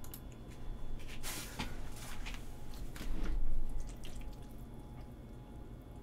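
Chopsticks stirring and lifting jajangmyeon noodles coated in thick black-bean sauce in a bowl: wet, sticky squelches with light clicks, loudest about three seconds in.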